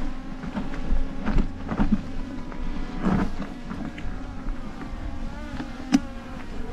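Small camera drone buzzing steadily as it hovers and follows close by, with scattered knocks and clicks over it.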